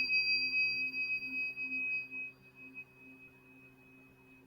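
High, clear ring of a struck metal chime fading away, with a lower wavering hum beneath it. The ring dies out about three seconds in.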